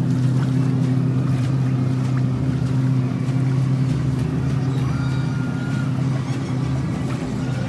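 A motorboat's engine running with a steady low hum as the boat passes close by, easing off near the end.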